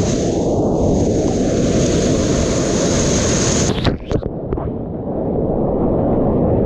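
Rushing whitewater and wind buffeting the camera microphone as a kayak runs rapids; the sound breaks off abruptly about four seconds in and drops for a moment before the rushing picks up again.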